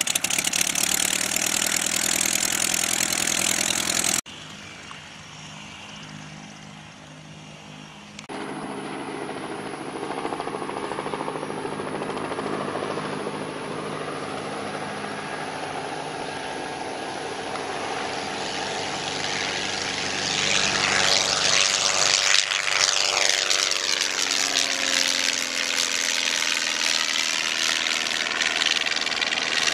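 Dyke Delta homebuilt delta-wing airplane's piston engine and propeller running, heard close up as it taxis. After abrupt cuts the same plane is heard at a distance on its takeoff run, growing louder as it climbs out and passes overhead about 20 seconds in, its tone sweeping up and down as it goes by.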